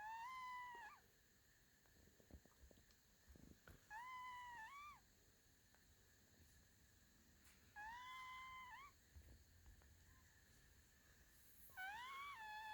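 A sleeping cat snoring, each breath coming out as a squeaky, whistling tone that rises at its end. It happens four times, about every four seconds.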